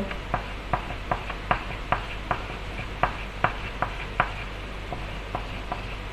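Pen or marker tapping and stroking on paper, short sharp clicks about two to three a second, over a steady low electrical hum.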